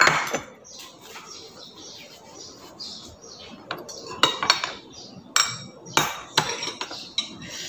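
A spoon clinking against ceramic bowls and dishes during a meal: a sharp clink at the start, then several more clinks scattered through the second half, with quieter eating sounds in between.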